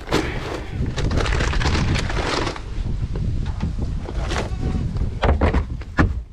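Wind buffeting the microphone, a loud low rumble with hiss, and a few knocks near the end.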